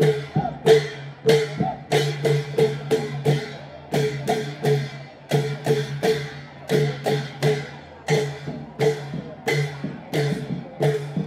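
Klong yao, Thai long drums, played by a marching troupe in a steady, driving rhythm. Sharp, ringing cymbal clashes land on the beats, about two to three a second.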